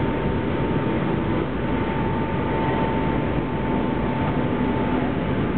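Steady rumble and wash of a ferry under way, heard from on board, with a thin steady whine that fades near the end.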